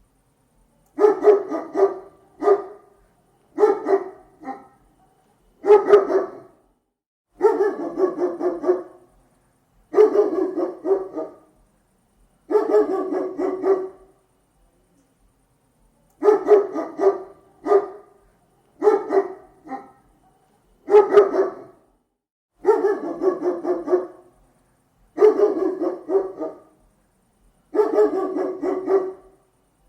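Large dog barking over and over, in quick clusters of deep barks separated by short pauses.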